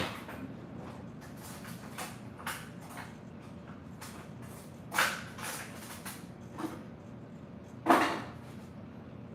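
Kitchen handling noises: a string of knocks and clatters from things being moved and set down, the loudest about five and eight seconds in.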